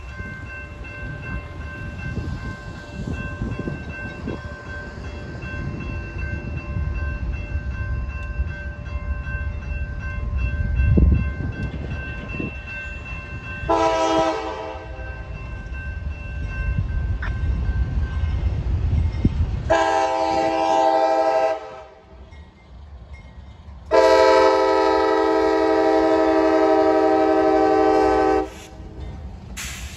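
Railroad crossing warning bell ringing steadily over a low rumble, stopping a little past halfway. An approaching CSX freight locomotive then sounds its horn as a multi-note chord: a short blast about halfway, a longer blast about two-thirds through, a long held blast after that, and another beginning at the very end.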